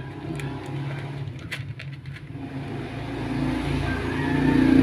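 A passing motor vehicle's engine, a steady hum that grows louder over the last couple of seconds as it approaches.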